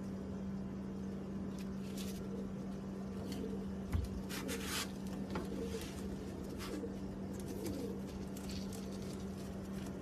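Fantail pigeon cooing in low, wavering tones, with short scratchy rustles and a single knock about four seconds in, over a steady low hum.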